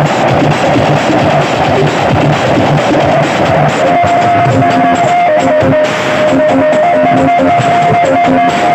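Loud music played through miniature sound-system speakers during a sound check, with a dense, noisy bed at first and a held melody line coming in about four seconds in.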